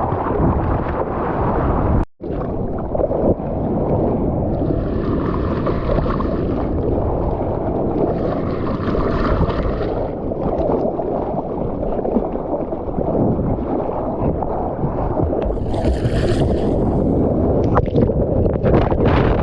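Wind buffeting a surfer's GoPro microphone over churning sea water, a steady low rumble with a few brief splashes.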